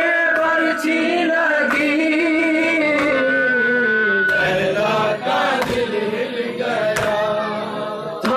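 Nauha, a Shia Muharram lament, chanted by men in long, wavering, drawn-out notes, with sharp slaps about every second or so from the mourners' chest-beating (matam).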